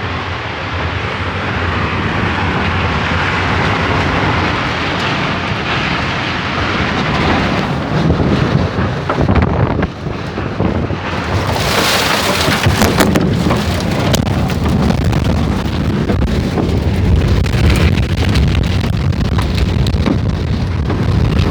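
Violent storm wind blasting against a phone's microphone, with rain, a loud, unbroken rush. The rush turns sharper and hissier for a second or two about twelve seconds in.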